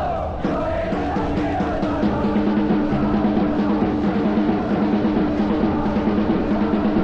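Crowd of football supporters singing a chant together over quick, steady drumming.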